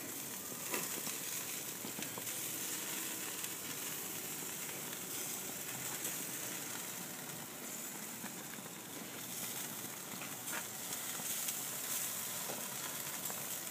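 Barbecued ribs sizzling on a grill: a steady hiss with a few faint pops.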